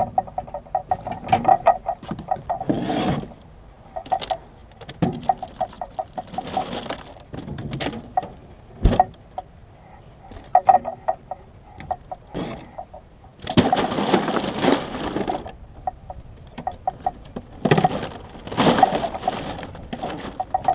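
Irregular knocks, fast rattling clicks and scrapes against a metal jon boat as a landed northern snakehead and gear are handled aboard. Two longer, louder spells of rattling come about two-thirds through and again near the end.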